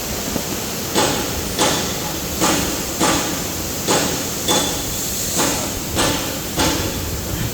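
A machine knocking: nine sharp knocks, starting about a second in and coming roughly every 0.6 to 0.9 s, over a steady machine hiss.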